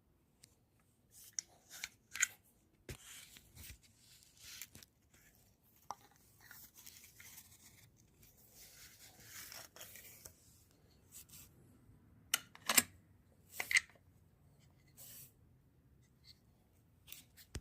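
Scattered light clicks, taps and soft rustling and scraping of things being handled, with two sharper taps in the second half; no gunshot.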